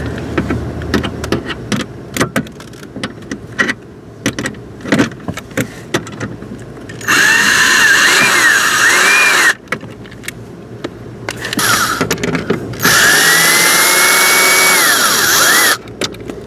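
Cordless drill/driver backing out dashboard trim screws: two trigger-controlled runs of a couple of seconds each, the motor pitch wavering in the first and rising, holding, then falling in the second. Light clicks of handling come in between.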